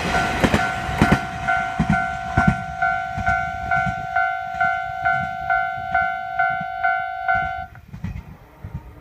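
Japanese level crossing warning bell ringing in a steady rhythm of about two strokes a second, cutting off near the end. In the first couple of seconds the wheels of a passing KiHa 120 diesel railcar clack over the rail joints under it.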